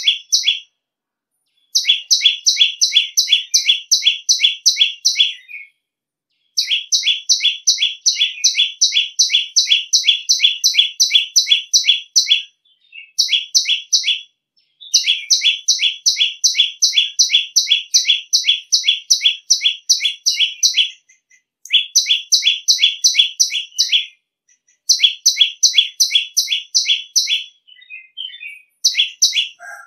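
Common tailorbird (prenjak lumut) giving its loud, shrill call: a fast run of sharp, high notes, about four a second. The notes come in bouts of a few seconds, with short pauses between them.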